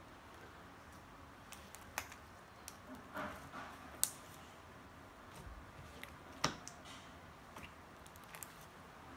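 Soft clay being kneaded by hand into sticky slime: scattered small sharp clicks and sticky pops. The loudest come about two, four and six and a half seconds in, with a short run of crackling around three seconds.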